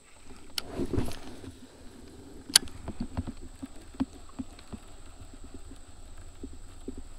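A cast and retrieve with a baitcasting rod and reel from a kayak: a click and a short swish about a second in, then a single sharp click, the loudest sound, about two and a half seconds in, followed by light ticks and low knocks as the lure is reeled back.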